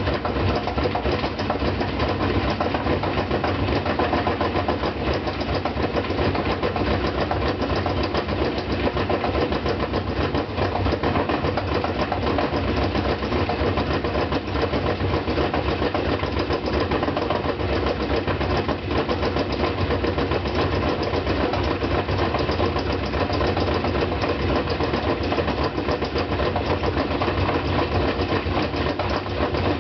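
GE Hydrowave washing machine in its spin cycle, with a loud, rapid, continuous knocking. The knocking was traced to the two loose screws of the concrete counterweight that balances the motor's weight.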